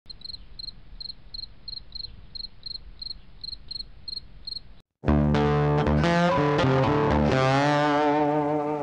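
Regular high chirps, about three a second, over a low hum. After a brief silence about five seconds in, loud guitar-led intro music starts.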